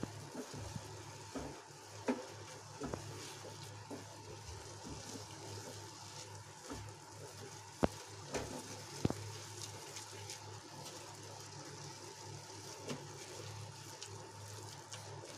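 A wooden spatula stirring and scraping a thick coconut and milk-powder mixture in a nonstick pan, with faint sizzling and a few sharp taps of the spatula against the pan, the clearest about eight and nine seconds in.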